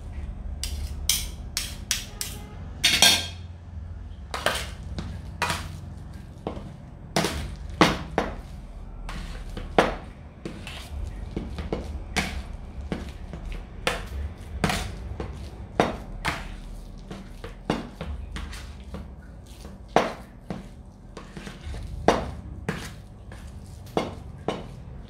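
Metal spoon and fork scraping and clinking against a metal tray while mashing and mixing boiled sweet potato: irregular knocks and scrapes throughout, with a longer scrape about three seconds in.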